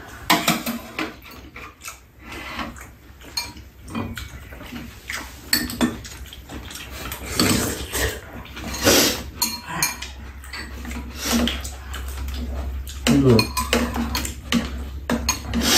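Spoons and chopsticks clinking and scraping against ceramic bowls on a metal tray as two people eat soup and side dishes, in irregular short clicks.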